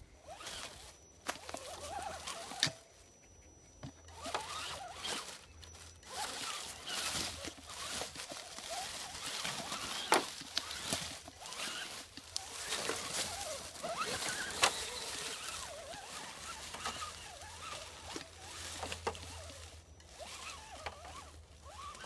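Footsteps crunching through dry leaf litter, an uneven rustle and crackle with a few sharp snaps.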